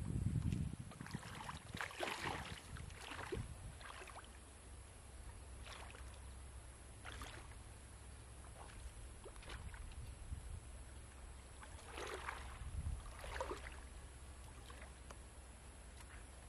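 Legs wading through knee-deep pond water: soft sloshing splashes a second or more apart, with a cluster of them a couple of seconds in and another pair about twelve seconds in.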